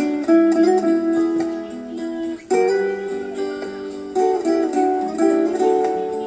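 Instrumental music with plucked guitar-like strings, played back through a small loudspeaker under a sound check.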